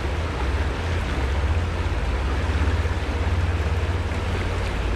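Shallow, fast creek water rushing steadily around the wading angler, with an uneven low rumble underneath.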